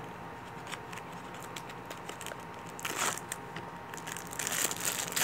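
A small cardboard toy-car box being opened and its plastic-wrapped contents handled: crinkling and rustling of card and plastic, briefly about three seconds in and again, louder, near the end.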